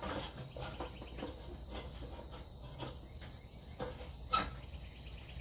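Scattered light clicks and knocks from handling a charcoal grill, a few sharper ones late on, over faint insect chirring.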